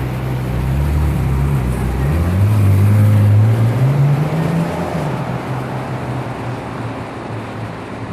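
Ferrari 458 Italia's V8 exhaust revving up, its pitch climbing twice and loudest about three seconds in, then dropping back and fading.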